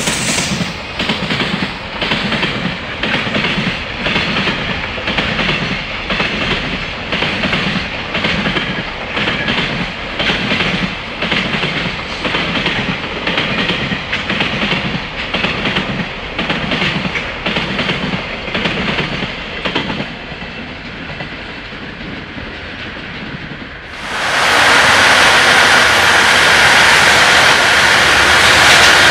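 Wheels of a long JR Freight container train clacking over rail joints in a steady, even rhythm as the wagons roll past; the clatter dies down about twenty seconds in. About four seconds later a louder steady rushing noise with a high whine sets in as an EH500 electric locomotive approaches on the next freight train.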